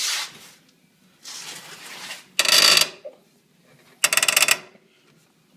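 Polaris RZR suspension creaking each time it is pushed down and let back up: a loud creak about every second and a half, each one a quick run of fine clicks, set off by just a few pounds of pressure. It is a new creak since SATV radius arms were fitted, and its source is unknown; the owner wonders whether it is the piggyback shocks.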